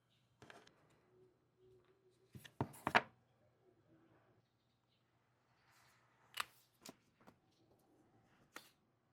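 Craft supplies and their packaging being handled: soft rustling with scattered sharp clicks and taps, the loudest cluster about three seconds in and a few single clicks later.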